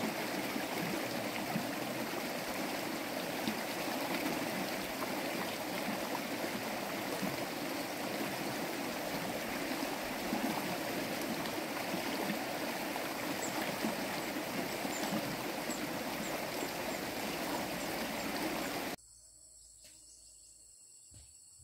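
Steady rush of a fast-flowing stream. About two seconds before the end it cuts off suddenly to a much quieter background with a faint insect buzz.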